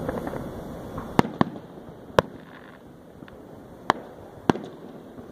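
Aerial firework shells bursting: five sharp bangs at uneven intervals, two close together, then three more spread over the next few seconds.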